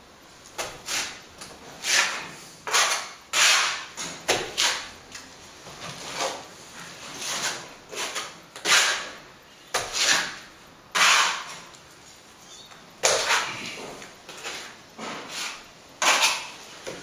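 Wet sand-and-plaster mix being thrown and worked into a wall chase: repeated short scrapes and slaps, uneven, roughly one every second.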